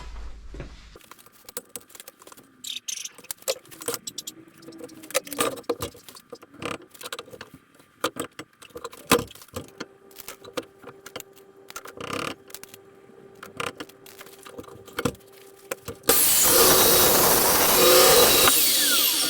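Clanks and clicks of metal stock being handled and set up for a cut, with a faint steady hum from about ten seconds in. About sixteen seconds in, an Evolution metal chop saw starts cutting through steel with a loud, steady cutting noise that lasts about three seconds.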